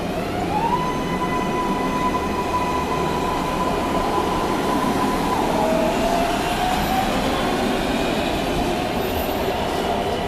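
MARTA rapid transit train pulling out and accelerating away, with wheel and rail rumble. Its propulsion whine rises in pitch about half a second in and holds, then drops and climbs slowly again about halfway through as the train speeds up.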